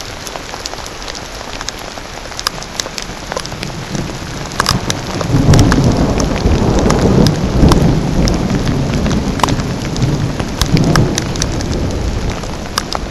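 Steady rain falling in woods, with many close, sharp drop ticks. From about five seconds in, a louder low rumble joins the rain.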